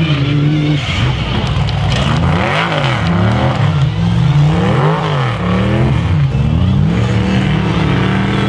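Engines of off-road race trucks revving up and down over and over as they drive the course, at least two engines whose pitches rise and fall across each other.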